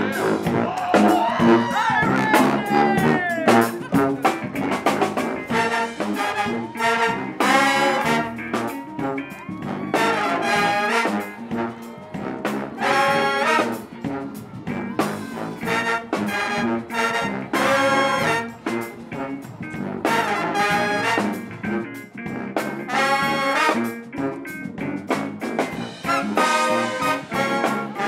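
Brass band music: trumpets and trombones playing a lively tune in short rhythmic phrases.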